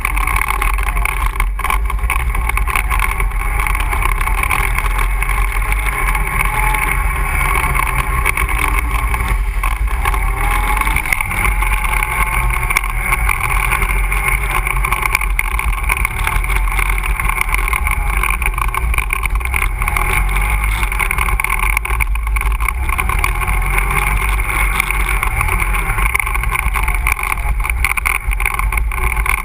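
ATV engine running steadily while riding a trail: a continuous drone with little change in pitch.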